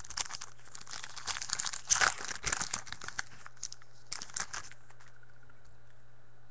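Foil trading-card pack wrapper crinkling and tearing as a pack is ripped open and the cards are handled, in irregular rustling bursts for about the first four and a half seconds. After that only a steady low hum remains.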